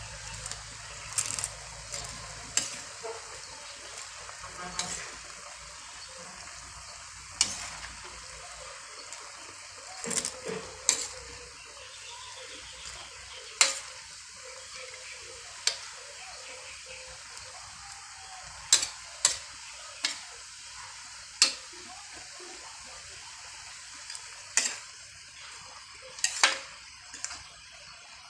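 Noodles frying in a pan with a steady sizzle while being stir-fried, with irregular sharp clinks and scrapes of the cooking utensil against the pan.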